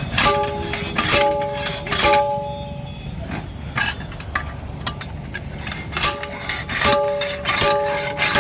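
Hammer blows on a steel wheel rim while a large JCB tyre is being taken off, about eight irregular strikes with each leaving a clear metallic ring. A low steady hum runs underneath.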